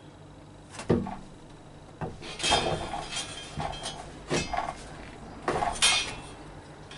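A heavy timber floor joist knocking and clanking against galvanised steel joist hangers as it is manhandled into place: one loud thump about a second in, then a run of wooden knocks and ringing metal clinks, the loudest near the end.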